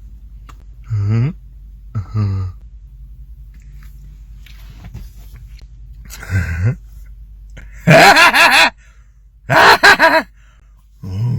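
A man belching over and over: three short, deep burps, then two long, loud belches, and another beginning at the end.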